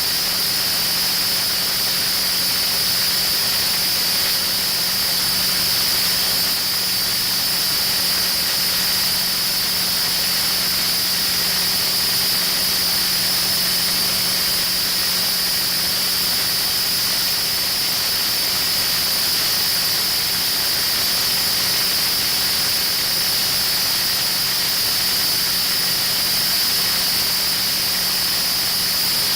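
Kohler 1000 kW diesel generator set running steadily, a constant high-pitched whine over the even engine noise.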